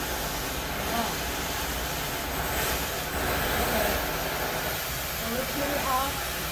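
Straight-barrel oxy-fuel cutting torch on a motorized track carriage, its cutting jet hissing steadily as it burns through steel plate.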